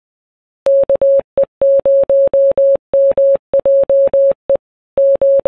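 Morse code sent as a single clean steady tone, a string of short and long beeps with brief gaps, starting under a second in.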